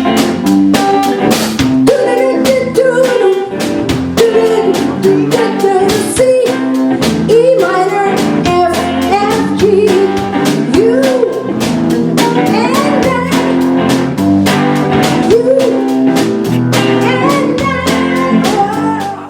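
A band playing rock music: a drum kit keeping a steady beat under guitar and a bending melody line. The music cuts off abruptly at the very end.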